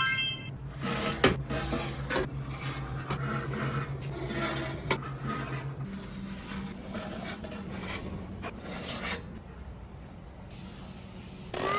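Irregular scraping and rubbing with scattered clicks over a steady low hum, after a brief run of electronic beeps at the start; the hum shifts up in pitch about halfway through.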